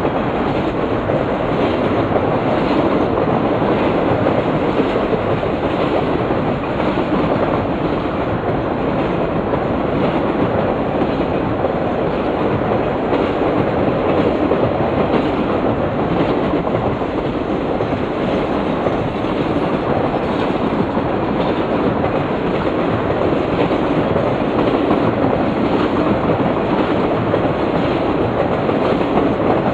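Freight train of Triple Crown RoadRailer trailers rolling steadily past over a steel girder bridge: a continuous rumble of steel wheels on rail, with a faint repeated clacking of wheels over the rail joints.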